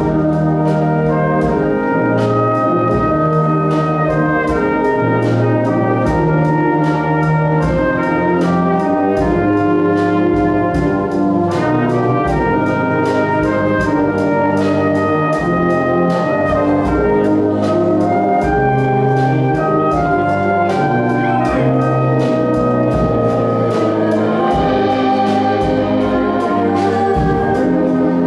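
Brass band playing full, sustained chords over a steady drum-kit beat.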